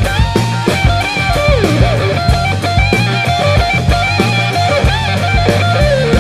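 Background rock music with electric guitar lead lines bending in pitch over bass and a steady drum beat.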